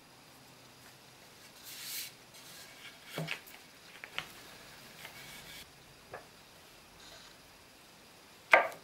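Handling noise on a plastic-sheeted workbench: a brief rustle and a few light wooden knocks and clicks as small wooden pieces and a board are picked up and set down, then one much louder knock near the end.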